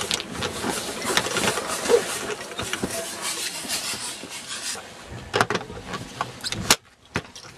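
Footsteps and rustling through dry grass and brush, with clothing and gear rubbing, as a person moves on foot; near the end, a few sharp knocks, the loudest as the camera rig brushes against a tree trunk.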